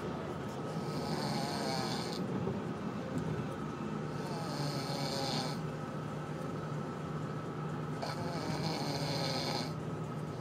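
Snoring in slow, even breaths, a hissing breath coming about every three and a half to four seconds, three times.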